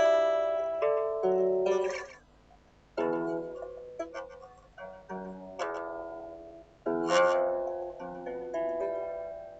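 Guitar played freestyle: plucked chords and picked notes left to ring out one after another, with a short silent pause about two seconds in before the playing starts again.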